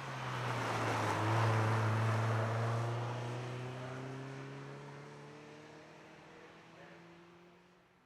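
A car accelerating up a hillclimb course past the camera, its engine note climbing steadily in pitch. It is loudest about a second and a half in, then fades away up the hill.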